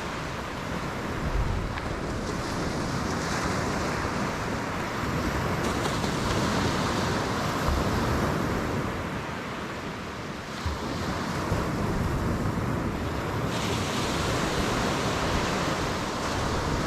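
Ocean surf washing onto the beach in a steady wash, with wind rumbling on the microphone.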